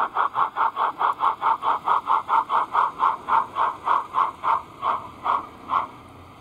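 O gauge model A1X Terrier tank locomotive chuffing. The beats slow from about five a second to about two as it draws to a stop, and they cease shortly before the end.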